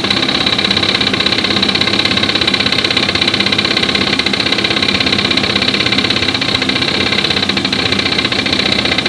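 Car engine running steadily with a fast, even pulsing.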